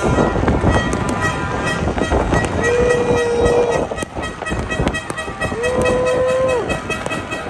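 A dense barrage of New Year fireworks banging and crackling over a low rumble. A horn sounds twice, about a second each, once near the middle and again in the second half.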